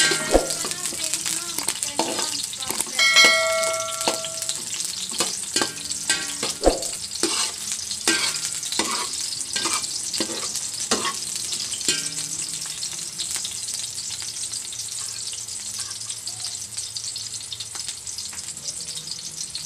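Sliced garlic and onion sizzling in hot oil in a stainless steel wok, with a metal ladle stirring and scraping against the pan in quick clinks. About three seconds in, a louder metal clang rings on for about a second. The stirring strokes die away about twelve seconds in, leaving a steady sizzle.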